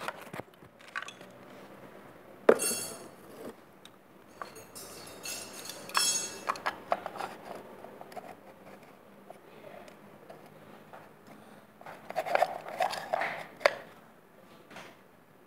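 Scattered clinks and knocks of metal parts being handled, with a busier run of knocks near the end.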